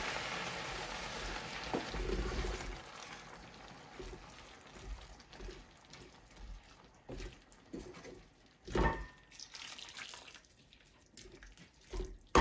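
Liquid being poured into a hot saucepan of simmering vegetables and pearl barley, a splashing hiss that fades away over the first few seconds. It is followed by a wooden spoon stirring the pan, with soft scrapes and knocks and one louder knock about nine seconds in.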